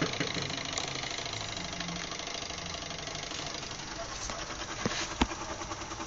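Washing machine running: a steady motor hum over churning sudsy wash water, with a sharp click about five seconds in.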